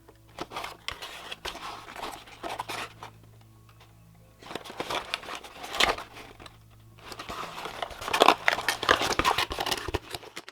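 Product packaging being handled by hand: plastic and cardboard crinkling and rustling in irregular bursts with sharp clicks, pausing briefly partway through.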